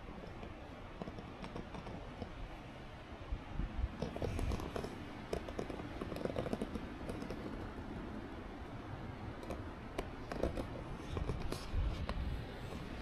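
Wind buffeting the microphone as a gusty low rumble, with scattered light clicks and rustles of handling.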